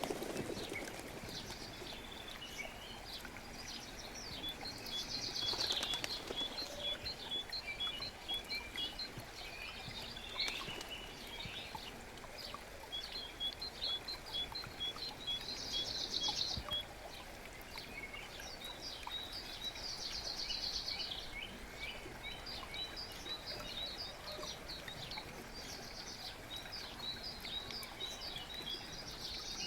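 Several birds singing over the steady rush of a forest brook. One bird twice gives a run of about eight short, evenly spaced high notes among other chirps and trills.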